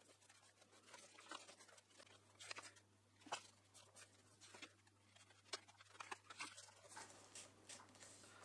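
Faint, scattered rustles and light taps of paper being handled as wallpaper is pressed and smoothed by hand onto a painted wooden drawer front, over a low steady hum.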